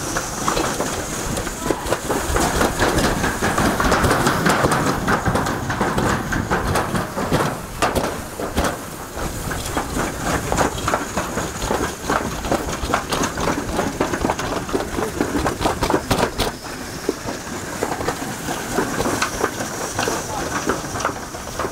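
Toboggan sled running down a metal chute: a continuous rattling rumble with rapid clicks and clacks from the sled on the metal track.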